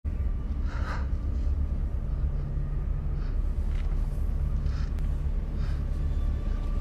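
Deep, steady rumble of a film soundtrack's tense ambience, with a few faint short noises scattered over it.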